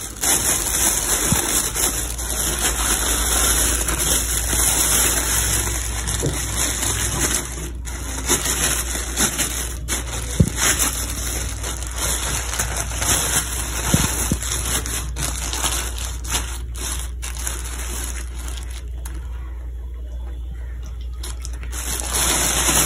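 Thin plastic grocery bags crinkling and rustling as hands handle and pull at them, with a few brief clicks.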